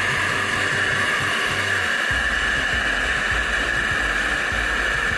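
Handheld gas brazing torch flame burning with a steady hiss.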